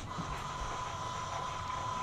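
Small battery-powered robot tractor standing still: a steady high electrical whine from its motors and motor controller over a faint hiss, the louder drive-motor whir having dropped away right at the start.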